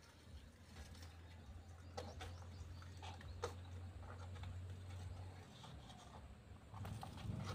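Faint scattered scratches and rustles of a monitor lizard's claws and body moving over dry leaves and cardboard, over a low steady hum that stops about five and a half seconds in.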